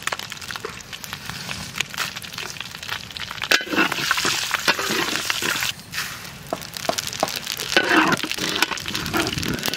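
Whole cumin seeds, dried red chillies and bay leaves crackling and sizzling in hot oil in a karahi, stirred with a metal spatula. This is the tempering (phoron) for dal.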